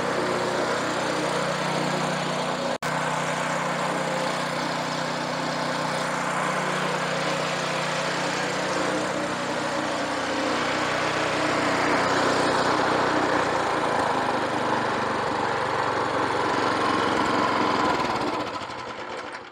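Small single-cylinder engine of a Southland rear-tine rototiller running steadily, getting louder about twelve seconds in, then shut off near the end and winding down to a stop. It runs smoothly after a carburetor cleaning, a new spark plug and a new air filter, where before it died after a minute or two.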